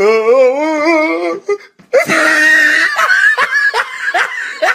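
A person's voice wailing on one held note with a wobbling pitch for about a second and a half, then, after a brief break, a loud high shriek that turns into short repeated bursts of laughter.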